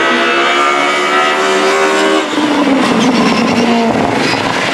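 Mercedes 190E Evolution II DTM race car's 2.5-litre straight-four engine running at high revs, a steady note for about two seconds. The sound then turns rougher and the engine note falls in pitch as the car goes by.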